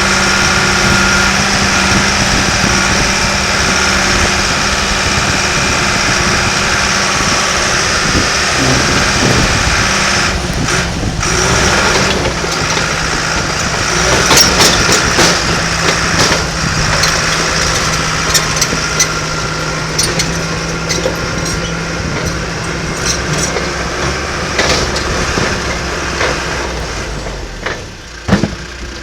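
Diesel engine of a John Deere 650J crawler dozer running steadily, with frequent short metallic clanks and rattles from about a third of the way in. The sound eases off near the end.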